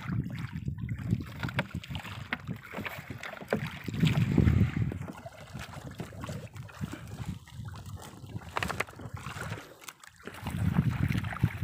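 Wind buffeting the microphone over sea water lapping at a small outrigger boat's hull, with gusts about four seconds in and again near the end. Light scattered knocks and rustles come from a nylon gillnet being hauled aboard by hand.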